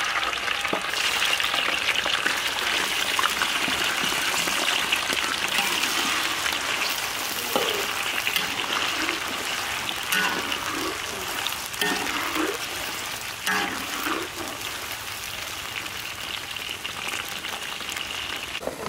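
Pieces of eel deep-frying in hot oil in a metal wok: a loud, dense sizzle that slowly eases.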